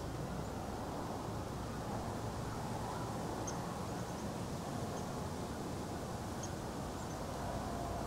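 Steady outdoor background noise, with a few faint, short, high chirps of small birds scattered through it.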